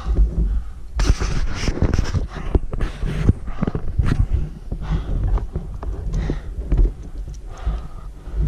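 A climber's heavy, labored breathing from hard exertion at about 6000 m altitude under a heavy pack, with frequent short clicks and knocks of hands and climbing hardware against the rock.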